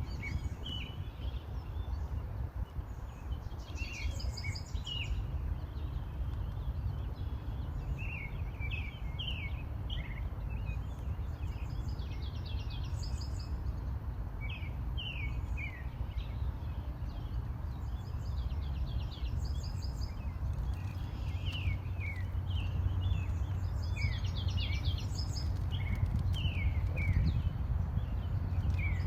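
Songbirds singing and chirping in short bouts of quick, mostly falling notes every few seconds, over a steady low rumble.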